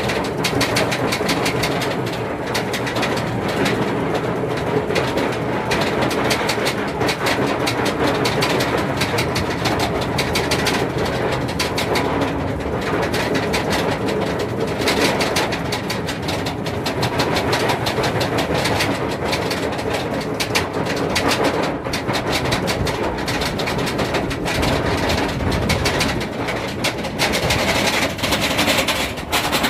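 Amusement ride machinery running steadily, a rumble under a dense, continuous rattle of clicks like wheels on track.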